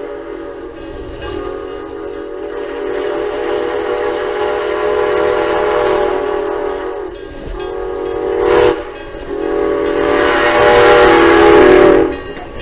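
Steam locomotive CN 7470, a 2-6-0 Mogul, blowing its steam whistle for a road grade crossing: a long blast, a short one, then a final long blast, the loudest, which cuts off sharply. The locomotive's running rumble lies underneath.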